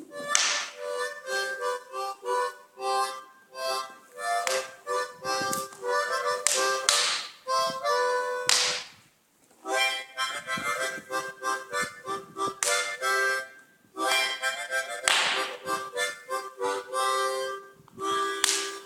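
Harmonica playing a tune of short notes and chords, pausing briefly twice.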